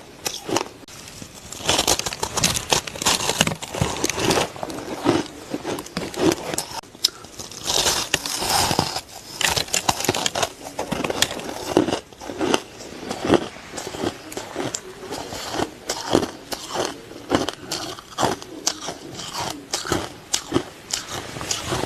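Ice being bitten and crunched between the teeth: an irregular run of sharp, crackling crunches and chewing, many per second.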